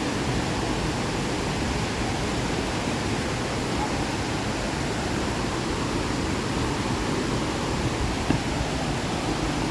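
Waterfall's falling water making a steady, even rushing hiss.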